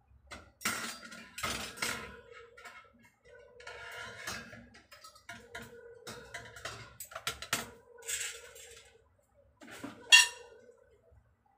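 Metal pots, lids and kitchenware clattering and knocking as they are rummaged through in a drawer, with one sharp ringing metallic clang near the end.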